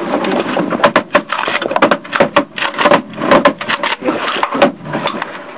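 Rapid, irregular series of loud bangs and knocks: shotguns firing at geese over a pit blind, mixed with the camera being knocked against the blind's wood and rubbed on camo clothing.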